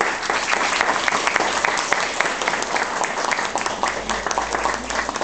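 Audience applauding: many hands clapping in a dense, steady patter that eases a little near the end.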